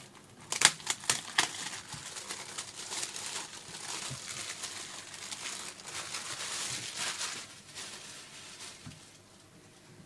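A sports card pack's wrapper being torn open and crinkled by hand. There are a few sharp snaps at the start, then a long crinkling rustle that dies away near the end.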